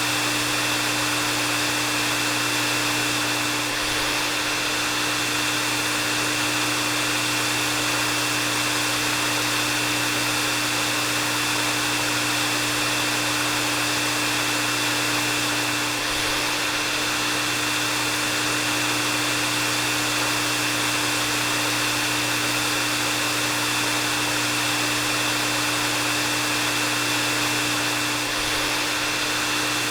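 Hair dryer running steadily: a continuous rush of air with a low motor hum and a high whine, dipping slightly and briefly about every twelve seconds.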